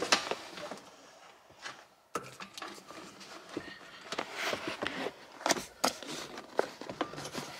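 Rustling, scraping and scattered clicks of hands pulling a GPS antenna cable through under a car's floor carpet. A sharp click at the start, a quiet stretch, then busier handling noise from about two seconds in.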